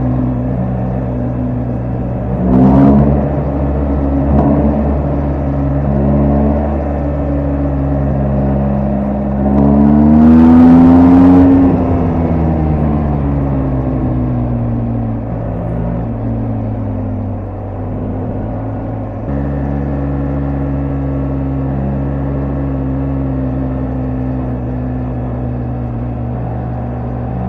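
BMW R1250GS Adventure's boxer-twin engine and exhaust while riding: a short rev about three seconds in, a longer pull near the middle whose pitch rises and then falls, then steady running.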